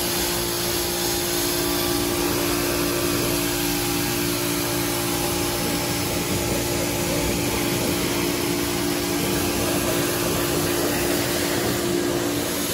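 Pressure washer running with a steady hum, its water jet hissing as it rinses soap foam off a motorcycle.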